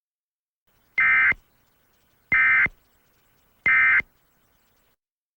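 Emergency Alert System End of Message tones: three short, shrill digital data bursts, about a second and a half apart, marking the end of the alert.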